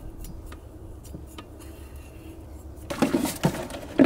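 Camping-stove gear being handled: faint clicks and taps while a Jetboil burner and its fuel canister are fitted together, then about three seconds in a louder burst of clattering and rustling, with a sharp knock near the end.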